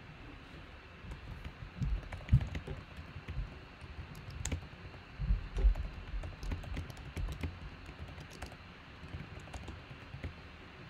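Typing on a computer keyboard: irregular key clicks mixed with a few dull, louder knocks, busiest in the first two-thirds and tailing off near the end.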